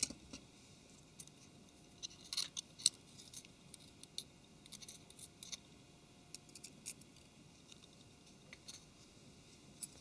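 Faint, scattered clicks and light scratches from small plastic and metal smartphone parts being handled and pried, over quiet room tone.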